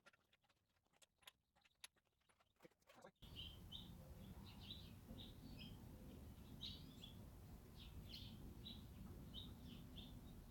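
Faint, scattered light clicks for about three seconds, then an abrupt switch to a quiet outdoor background hum with a small bird chirping in short, repeated calls.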